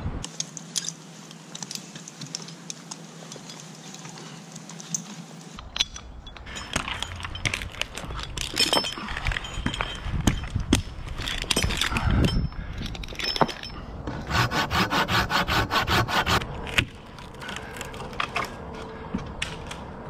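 Climbing a dead maple on rope and spikes: rubbing and scraping on bark, with scattered clicks and clinks of rope hardware, and a run of quick, even scraping strokes about three-quarters of the way through.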